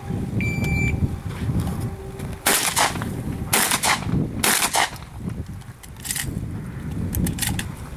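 An electronic shot-timer start beep, about half a second long, then four shotgun shots at roughly one-second intervals, the last one a little later. Several lighter clicks follow near the end.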